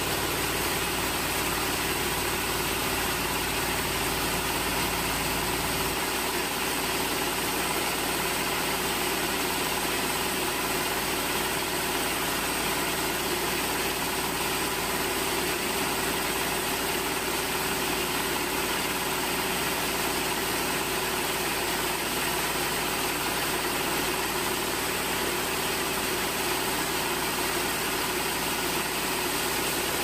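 Band sawmill running steadily as its blade cuts lengthwise through a large mahogany log, with a steady mechanical hum. A low rumble drops out about six seconds in.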